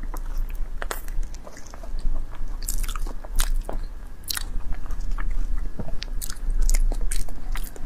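Close-miked mouth sounds of biting and chewing ripe durian flesh: irregular clicks and smacks of lips and mouth.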